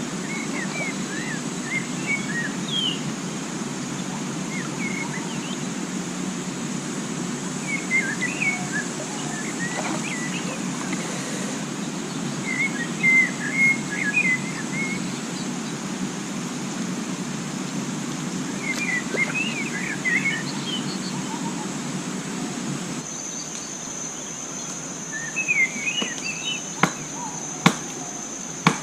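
Forest ambience: birds chirping in short bursts every few seconds over a steady high insect drone and a low, steady rushing noise. A few sharp knocks come near the end.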